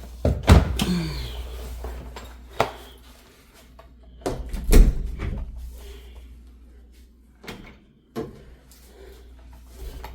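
Household items being handled and put away: a series of separate knocks and clunks, the loudest about half a second in and just under five seconds in, with quieter ones between.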